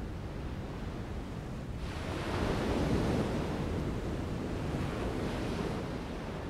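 Ocean surf: waves breaking and washing in. It swells louder about two seconds in as a wave crashes, then eases back to a steady wash.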